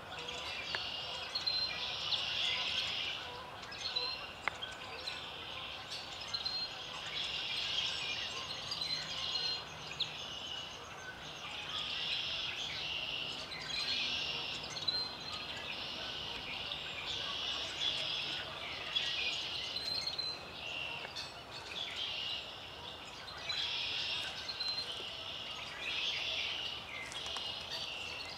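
Songbirds singing: song phrases repeat about every two seconds, with short high chirps in between, over a steady background hiss of the outdoors.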